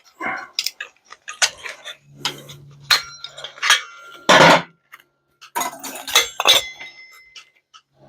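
Metal microwave parts being handled and dropped while it is taken apart for scrap: a string of sharp clinks and clanks, some leaving a brief metallic ring, with a low hum in two short stretches.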